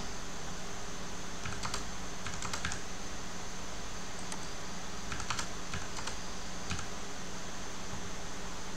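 Computer keyboard keys typed in two short bursts of keystrokes, a few seconds apart, over a steady background hiss.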